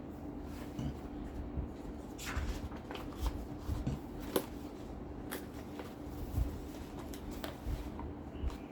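Paper rustling and a few separate sharp plastic clicks as a stapler's sliding paper guide is pushed back and locked and the sheets are positioned.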